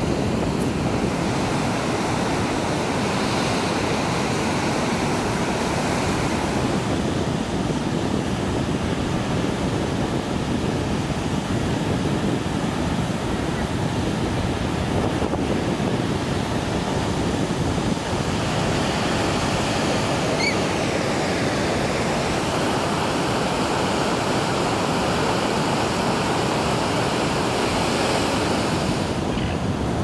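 Surf breaking on a rocky shore: a steady, unbroken wash of wave noise.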